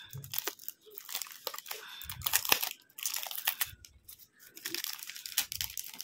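Clear plastic wrapping crinkling and rustling in irregular crackles as it is pulled off a small plastic TV box.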